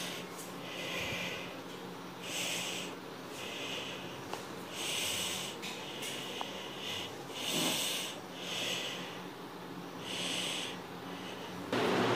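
A person breathing close to the microphone, a soft in-and-out hiss about every two and a half seconds, over a faint steady low hum. Near the end a louder, even noise cuts in.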